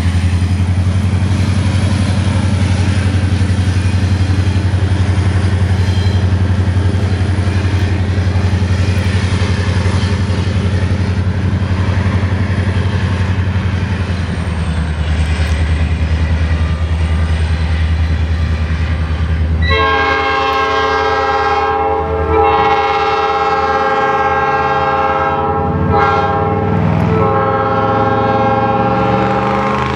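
EMD GP30 diesel locomotive running under power as it passes and pulls away, its engine a heavy, steady drone. About two-thirds of the way in, its air horn sounds a chord in a series of long blasts, one close after another.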